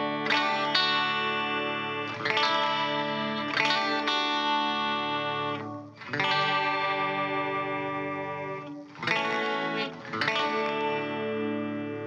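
Eight-string electric guitar with Chinese-made Invander humbucker pickups played on a clean amp setting. Chords are struck every second or two and left to ring, with one held and fading for nearly three seconds midway.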